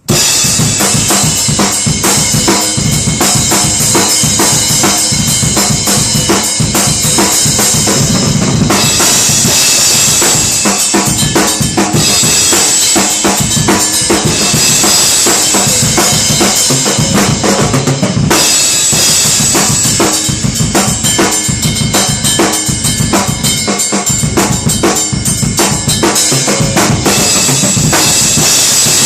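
Drum kit played freestyle: fast, dense bass drum and snare strokes under a continuous high wash, starting abruptly, with the pattern shifting about nine and again about eighteen seconds in.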